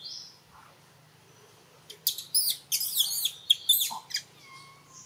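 Young macaque screaming: a run of short, shrill squeals packed into about two seconds, starting about two seconds in.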